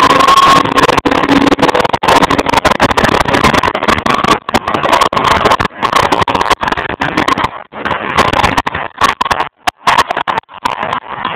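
A stunt car's engine running hard and its tyres screeching as it drifts. The recording is overloaded and keeps cutting out in short dropouts.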